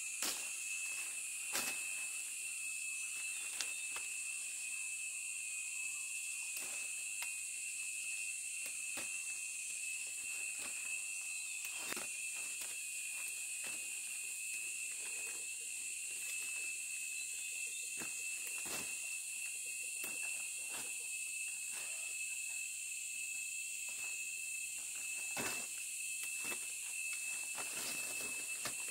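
A steady, high-pitched insect chorus: a constant shrill hiss with a thin ringing tone under it. Scattered light clicks and knocks come through it at irregular times.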